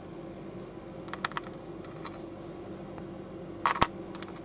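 Small plastic Panlos building bricks clicking as they are handled and pressed together: a few light clicks about a second in, then a louder cluster of clicks near the end, over a steady low hum.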